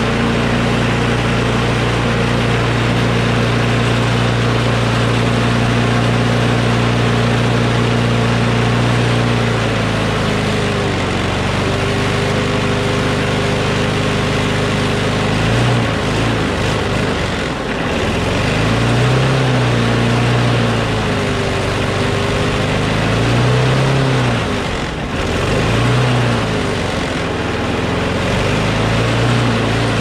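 Single-cylinder Briggs & Stratton Quantum engine on a Craftsman push mower running, its governor spring eased to bring down an rpm that was too high. It holds a steady speed at first, drops in speed about a third of the way in, and in the second half its speed rises and falls again and again.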